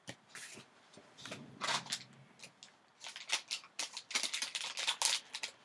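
Foil card pack crinkling and crackling as it is handled and worked open in the hands: a quick, irregular run of crinkles that starts about a second in and is thickest in the second half.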